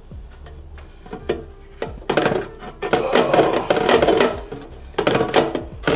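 Lineman's pliers crushing and pulling at a fastener on a pottery wheel's motor wire: a few light clicks, then loud scraping and crunching from about two seconds in to nearly five, with a shorter burst near the end.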